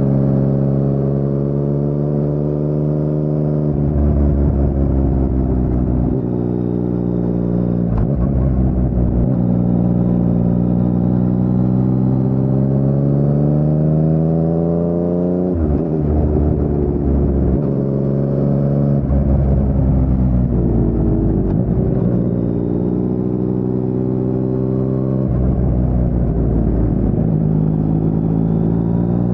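2019 Yamaha MT-09's 847 cc inline three-cylinder engine through an Akrapovic carbon full-system exhaust with no dB killer, ridden through bends. The revs climb and fall repeatedly with the throttle, breaking off sharply about 8 and 16 seconds in.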